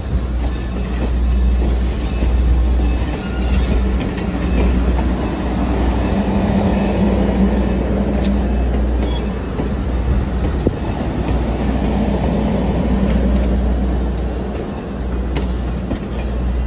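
Vintage passenger coaches rolling slowly along the station platform: a steady rumble of steel wheels on the rails, with a few sharp clicks.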